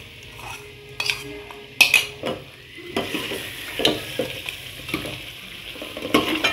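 Steel spoon stirring chicken in a yogurt and masala mixture in an aluminium pot on the stove, with sharp clinks of the spoon against the pot. The mixture sizzles as it starts to fry, the sizzle building from about halfway through.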